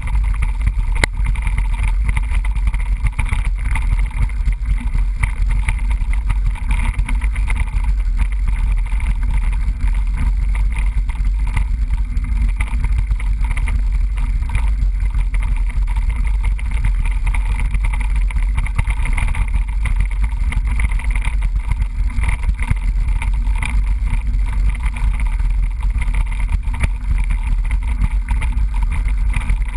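Steady wind noise and rumble on a bike-mounted GoPro microphone during a mountain-bike ride, with the bike's tyres and frame adding a constant run of faint rattles and ticks.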